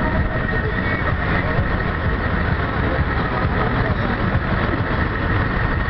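Vehicle engine running steadily.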